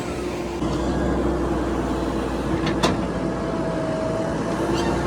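JCB 3DX backhoe loader's diesel engine running steadily, a little louder from about half a second in, with a single sharp knock near the middle.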